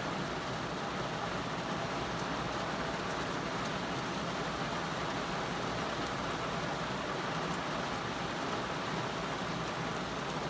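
Steady rain falling on a car, an even hiss of drops with faint scattered ticks.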